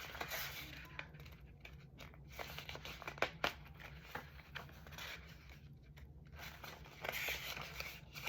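Paper pages of a book being turned and flipped through in quick succession: irregular rustling and crinkling, with a couple of sharp page snaps about three seconds in.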